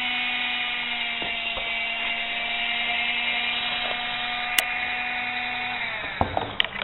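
Hand-mixer's brushed motor running on low-voltage DC from a transformer and bridge rectifier, with its plastic output gears turning: a steady whine with a buzz. About six seconds in it dips in pitch and winds down, followed by a few clicks.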